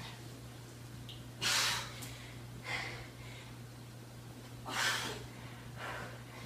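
A woman breathing hard while doing single-arm push-ups: two strong breaths out about three seconds apart, each followed a second later by a softer breath.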